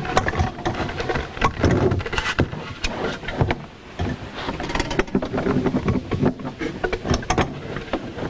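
Irregular clunks, clicks and scrapes of a hot tub jet pump being handled and set back into place in the spa cabinet.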